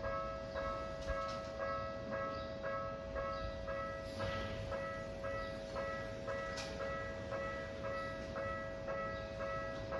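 Japanese railway level-crossing alarm ringing steadily, about two strikes a second, while a train passes with a low rumble and brief rushes of noise about four and six and a half seconds in.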